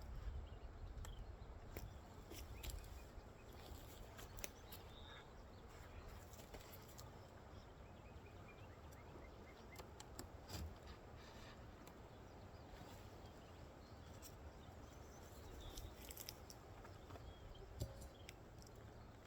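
Faint wind rumble on the microphone, with scattered light clicks and taps.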